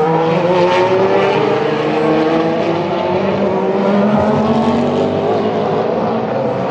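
Endurance race car engine under hard acceleration, its note climbing steadily in pitch over several seconds.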